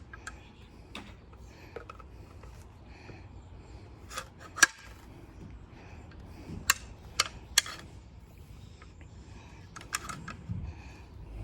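Sharp clicks and clacks of a circular saw being handled and its blade-depth adjustment worked by hand, about half a dozen separate clicks with the loudest about four and a half seconds in.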